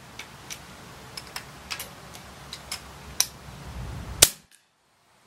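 Scattered light clicks, then a single sharp crack about four seconds in as the FX Impact PCP air rifle fires a slug; the sound then cuts off suddenly.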